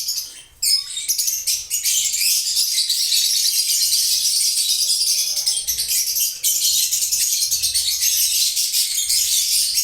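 Lovebirds chattering: a dense, continuous stream of high-pitched chirps and twitters, dipping briefly about half a second in and again near the middle.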